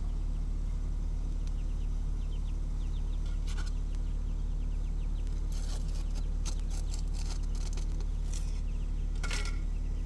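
A steady low hum throughout, with a few short crackles and scrapes from hands working soil and a clay plant pot; the clearest comes near the end.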